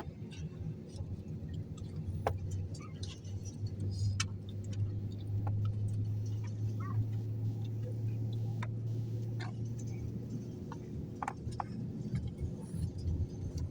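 Cabin noise inside an Airbus A321: a steady low hum from the aircraft that grows stronger for several seconds in the middle, with scattered small clicks and rustles.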